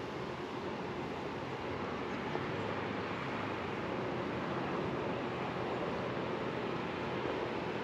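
Steady outdoor city ambience: an even rushing noise with no distinct events.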